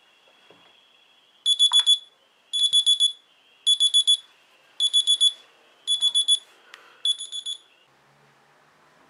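Smartphone alarm ringing: six quick groups of high beeps, about four beeps to a group, a little over a second apart, stopping near the end.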